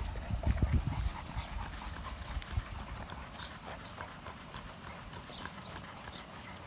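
Dogue de Bordeaux dogs panting and moving about, with scattered light footsteps on dry grass and dirt; a few low thumps in the first couple of seconds.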